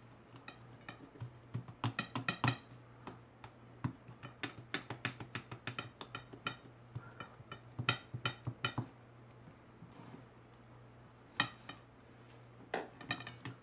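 Irregular clicks and clinks as the metal end cap and body of a large Bussmann NON-400 cartridge fuse are twisted, worked loose and knocked against a ceramic plate. The taps come in quick clusters with short pauses between.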